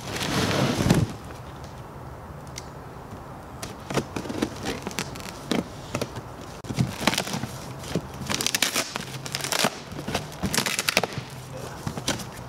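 Packing tape being cut and torn on a cardboard box, with crackling and scraping of the cardboard as its flaps are pulled open. A louder rustling noise comes in the first second, and the crackles grow busier in the second half.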